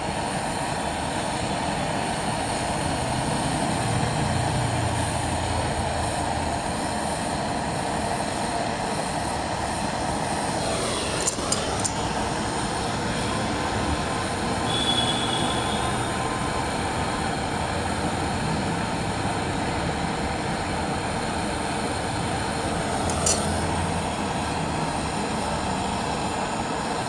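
Brazing torch flame burning steadily with a constant rushing noise. There are a few short clicks about eleven seconds in and again about twenty-three seconds in.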